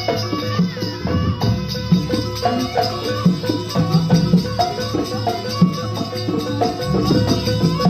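Live jaranan ensemble music: drums and struck metal percussion keep up a dense, steady rhythm, with ringing metallic notes and a rattling, shaker-like jingle.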